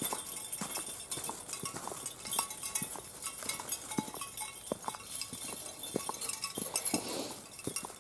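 Footsteps on a frozen trail: irregular crunching steps with a light metallic clinking.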